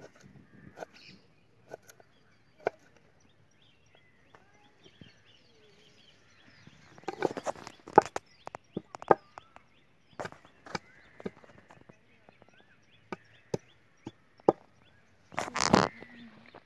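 Garlic cloves crushed with a stone on a wooden chopping board: wooden knocks, sparse at first, then a quick cluster about seven seconds in, single strikes after that, and a dense flurry near the end.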